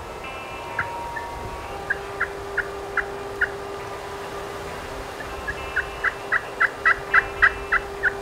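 Wild turkey yelping: a run of five short, evenly spaced yelps, then after a pause a longer run of about a dozen that grows louder toward the end.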